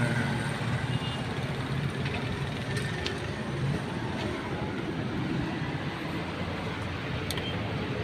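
Steady street traffic noise, an even low rumble with a few faint clicks.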